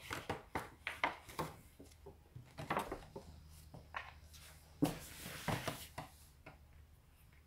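Paper gift bag being handled and filled: scattered short rustles and crinkles of stiff paper, the loudest about five seconds in.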